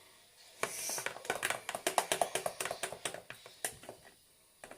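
Slime being stirred just after activator has been added, giving a rapid run of sticky clicks and squelches. It goes quiet a little before the end as the slime thickens.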